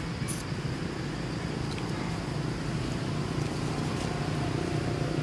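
Steady low background hum and rumble, with a faint high tick about a third of a second in.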